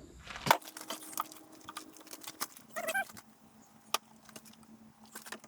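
Scattered clicks, taps and light knocks of small parts and tools being handled while the hatch trim is removed, with a brief squeak about three seconds in.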